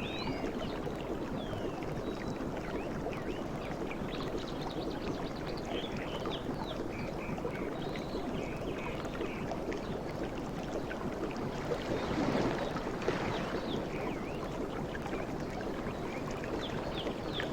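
Sea water washing and lapping steadily at the shore, with one wave swelling a little louder about twelve seconds in. Small birds chirp throughout.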